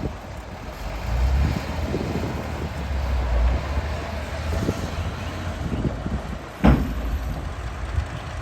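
Heavy earthmoving machine or truck engine rumbling steadily, with one sharp knock about two-thirds of the way through.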